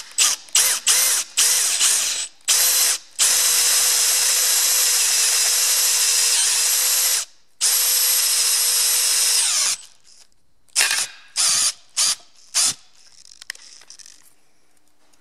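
Power drill boring out a broken steel brake drum retaining bolt with a larger twist bit. It starts with a string of short bursts, runs steadily for about four seconds and then two more, gives a few more short bursts, and falls quiet near the end.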